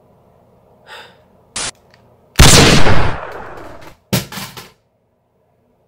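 A single loud gunshot with a decaying tail, preceded about a second earlier by a couple of quieter clicks. A second, shorter burst follows just after the shot.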